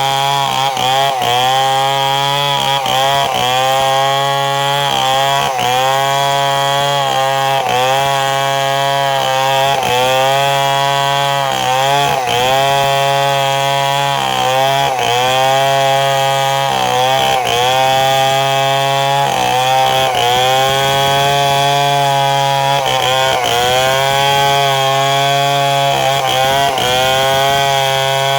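Chainsaw running under load while cutting, its engine note sagging and picking back up every second or so as the chain bites.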